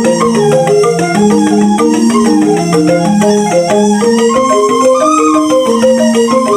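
Balinese rindik, a bamboo xylophone, playing a quick run of many short notes over a lower moving melody.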